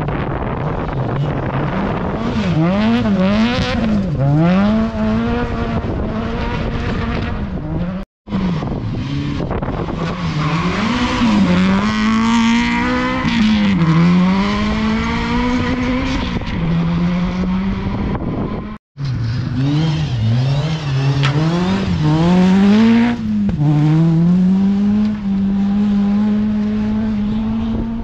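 Rally cars at full effort on a gravel stage, one after another: each engine revs hard, its pitch climbing and dropping again and again with gear changes and lifts through the bend. There are three passes, each ending in an abrupt cut.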